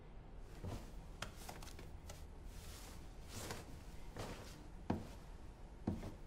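Soft footsteps and rustling of clothing from a person moving in a quiet room: light taps and brushing sounds, roughly one a second, the firmest two near the end.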